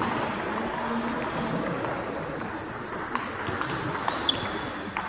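Table tennis ball clicking off paddles and table in a rally, the hits coming quickly, about every half second in the second half, over steady background noise of a large sports hall.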